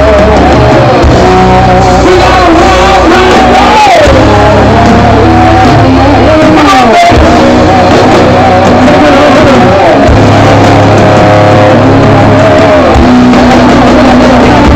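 Loud rock music: electric guitar playing bending, wavering notes over a heavy bass line, with singing.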